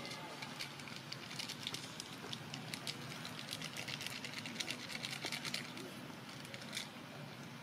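Dry leaf litter and twigs crackling and rustling in quick, irregular ticks, busiest in the middle, over a steady outdoor hiss.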